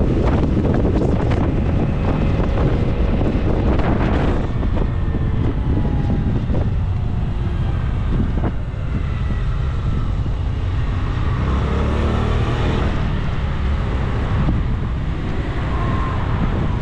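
Wind buffeting the microphone of a bicycle-mounted action camera while riding, a steady low rumble, with faint passing traffic and a few short clicks and faint tones.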